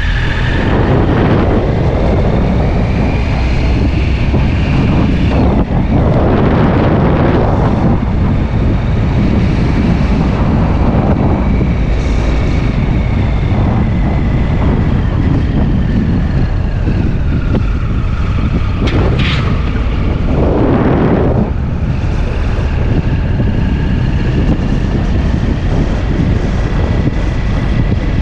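A vehicle on the move: steady road and engine rumble with heavy wind buffeting on the microphone, swelling in a few gusts, and a faint whine that sags in pitch past the middle and then climbs back.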